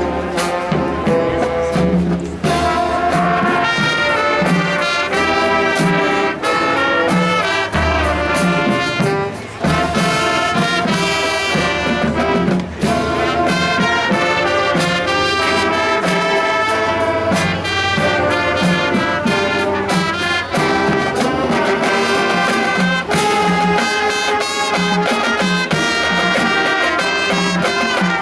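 A marching band plays a brass-led number, with trumpets and trombones carrying the melody over a steady low beat.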